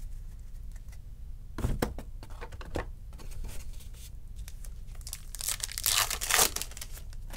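Foil wrapper of a baseball card pack being torn open: a burst of crinkling and tearing about five seconds in, lasting a second and a half. A brief rustle comes earlier, about a second and a half in.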